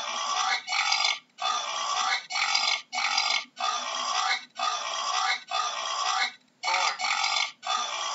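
Wild pig calling in a steady run of short, rasping grunts, each under a second long, with brief gaps between them.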